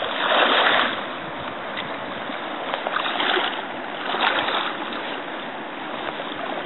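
River water rushing steadily, with louder splashy surges about a second in, around three seconds and again past four seconds.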